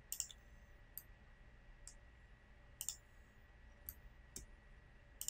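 Faint computer mouse button clicks, about one a second, one of them a quick double click, while faces of a model are picked on screen.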